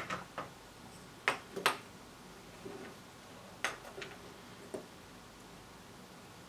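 Irregular small clicks and taps, about eight in all, the sharpest around a second and a half in: a small circuit board and its metal helping-hands clamp being handled as a component lead is fitted.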